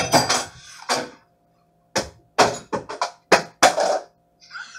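A run of about ten sharp, irregular knocks and clacks from a plastic food container and a utensil being handled, coming faster in the second half.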